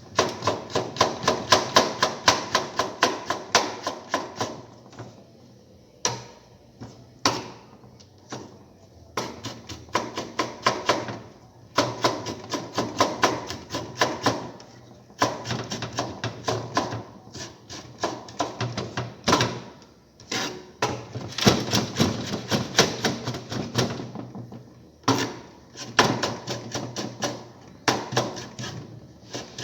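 Knife chopping ginger finely on a cutting board: quick runs of sharp chops, several a second, broken by short pauses.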